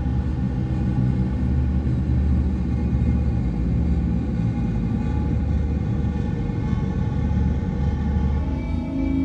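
Dark ambient drone: a deep, steady rumble with faint sustained tones above it. Near the end a new, higher held tone layer comes in.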